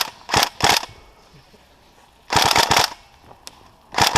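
Airsoft SCAR-L electric rifle firing short rapid bursts of a few shots each, four or so bursts in all, with the longest about halfway through.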